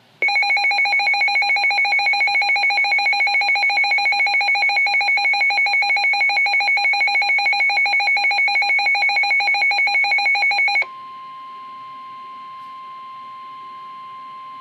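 Weather radio warning alarm: a loud, rapidly pulsing electronic beep for about ten seconds, then a switch to the steady, quieter NOAA Weather Radio alert tone of about 1 kHz, which stops just before the end. It announces a severe thunderstorm warning.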